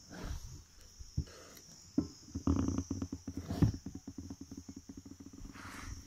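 Diesel suction hose gurgling in the drum as fuel is drawn up: a fast run of pops begins about two seconds in and gradually fades, over a steady high hiss.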